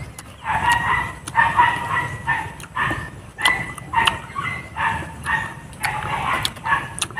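Short animal calls repeating about once a second, with a few sharp crunching clicks of raw fruit being bitten and chewed.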